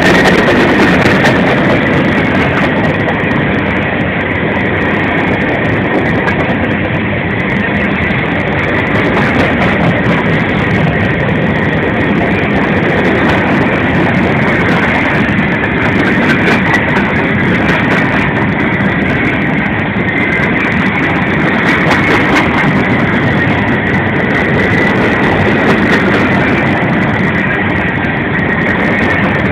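Long freight train of empty cars rolling past at close range: steady rumble and rattle of wheels on rail, with irregular clicks over rail joints and a steady high-pitched squeal.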